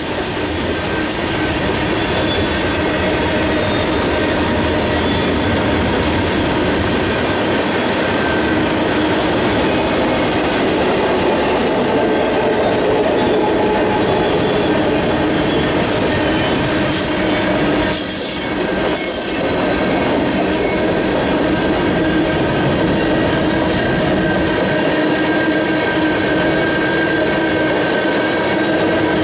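Freight cars of a mixed manifest train rolling past close by: a steady rumble of steel wheels on the rails, with high, drawn-out wheel squeal tones held throughout. The sound dips briefly about two-thirds of the way through.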